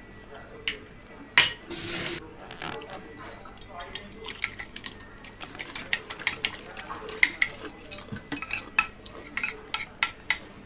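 Metal fork beating egg yolks on a ceramic plate: quick, irregular clicks and scrapes of the tines against the plate, coming thick and fast from about four seconds in. Near the start there are a few sharper knocks and a brief hiss.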